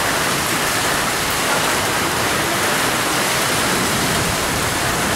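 Heavy rain pouring steadily in a loud, even hiss.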